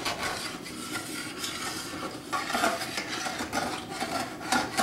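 Slotted metal spatula scraping and stirring across the bottom of a stainless steel skillet of thin flour-and-water gravy, metal rasping on metal with the liquid swishing, in repeated strokes that lift the browned bits off the pan. A few sharper scrapes come about halfway through and near the end.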